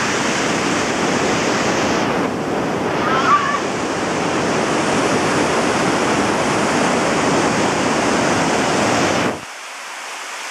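Neelum River whitewater rushing over boulders, a loud, steady roar. About nine seconds in, the deep rumble under it drops away and the rush becomes quieter.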